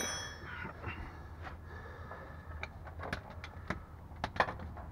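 Scattered light clicks and clinks of hand tools being handled on the car, over a low steady hum. A short metallic ring dies away at the start.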